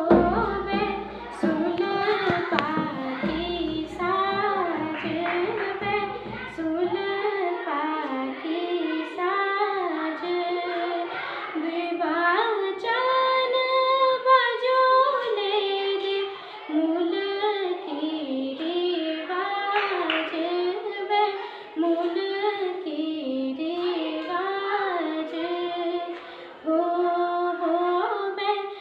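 A young girl singing a song solo, her voice moving up and down through the melody with a few long held notes.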